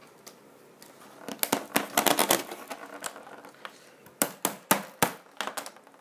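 Cheap fake multi-tool being handled, clicking and scraping: a quick run of clicks and scrapes about a second and a half in, then five or six separate sharp clicks later on.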